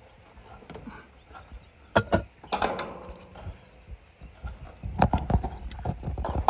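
Sharp clicks and knocks from handling tools and low-voltage thermostat wire: a couple about two seconds in, a few more just after, and another group about five seconds in.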